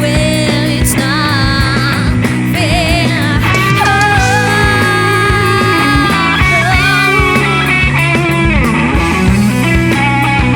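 Psychedelic stoner-rock band playing: guitars, bass and drums under a lead line that wavers with vibrato and bends in pitch, with a long falling bend near the end.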